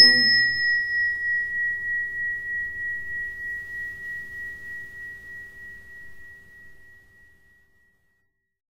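A small struck metal bell or chime rings out once, a high clear tone with a regular wobbling beat, dying away to nothing over about seven seconds. It closes a chanted Buddhist mantra.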